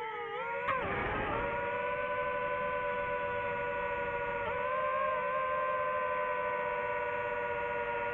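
DJI FPV drone's motors and propellers whining, the pitch dropping at the start as the throttle eases off, then holding steady. A short rush of noise comes about a second in.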